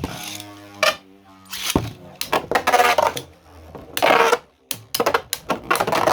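3D-printed Beyblade-style spinning tops launched into a stadium, spinning with a whirring hum, then clashing in a rapid run of sharp clattering hits.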